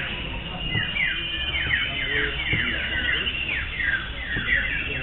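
Several common ioras (cipoh) singing at once in a song contest: many quick, high falling whistles and chirps, repeated and overlapping, over a low murmur of people.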